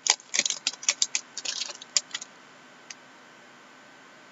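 Foil wrapper of a hockey trading-card pack crinkling and crackling in quick, irregular bursts as it is torn open and peeled away from the cards, for about two seconds. Then faint room tone with one soft tick.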